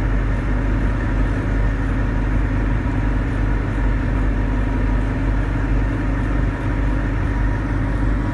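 Patrol boat's engine running steadily under way, a constant low drone with a steady rush of water and wind over it.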